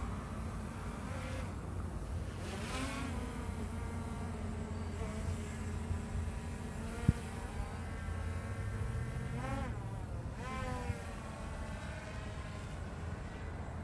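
DJI Mavic Air 2 quadcopter's propellers buzzing overhead, the pitch of the whine swooping up and down twice as the drone manoeuvres. One sharp click about seven seconds in.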